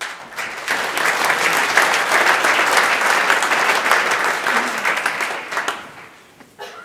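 Audience applauding: dense clapping that swells up within the first second, holds, and dies away about six seconds in.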